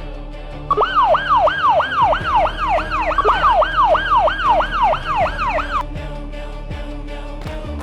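Emergency-vehicle siren in a fast yelp, its pitch sweeping downward over and over about three times a second; it starts about a second in and cuts off near six seconds, with steady background music underneath.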